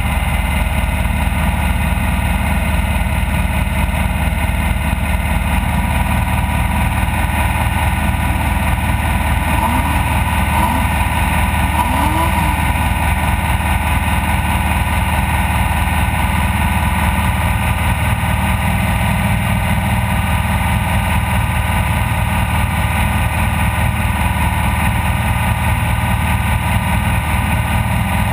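Off-road race vehicle's engine running steadily, a constant loud drone that does not rise or fall.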